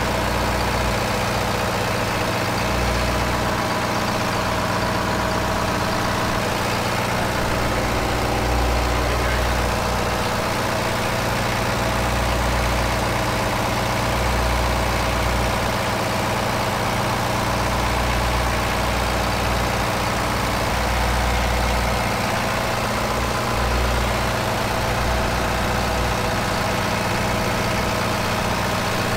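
Marine diesel engine idling steadily in a boat's engine room: a deep, even drone with a slowly swelling low throb.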